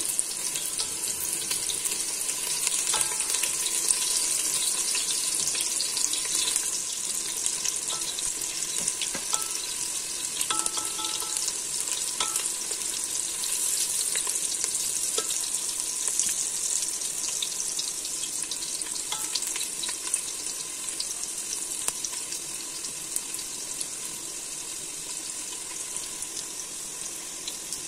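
Sliced onions sizzling in hot oil, being lightly fried: a steady high hiss full of fine crackles, stirred now and then with a spatula.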